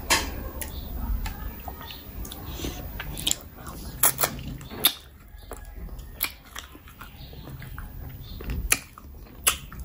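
Close-miked eating of spicy mutton curry by hand: biting meat off the bone and chewing, with a scatter of sharp mouth clicks and smacks.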